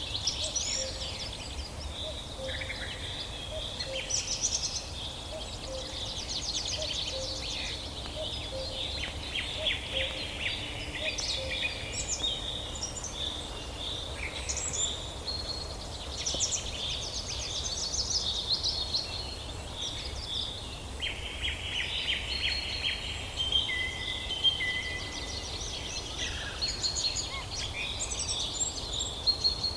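Several birds singing and calling at once, in a dense chorus of overlapping chirps and fast trills, over a low steady background rumble.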